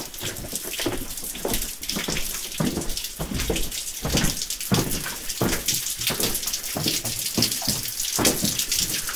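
Water trickling and splashing down the rock into a drainage channel in a mine gallery, with footsteps on the floor about every two-thirds of a second.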